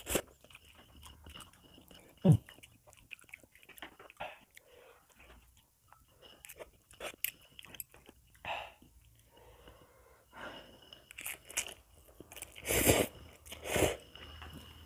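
A person eating fried instant noodles and boiled egg: chewing, slurping and biting, with small clicks of a spoon and chopsticks against the plate. There is a sharp click a couple of seconds in and two louder bursts of mouth noise near the end.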